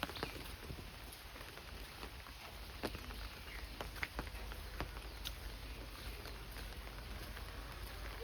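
Monsoon rain falling steadily, with scattered sharp taps.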